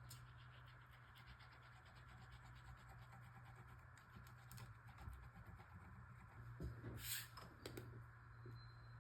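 Faint scratching and rubbing of paper as a piece is glued down onto a journal page, over a low steady hum, with a couple of brief louder scrapes about seven seconds in.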